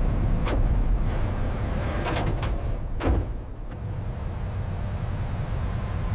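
A steady low rumble of an aircraft in flight, with a few short knock-like sounds about half a second, two seconds and three seconds in.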